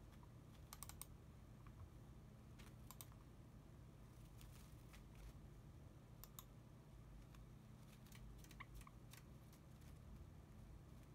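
Faint, scattered light clicks and taps, some in quick pairs or small groups, over a low steady room hum.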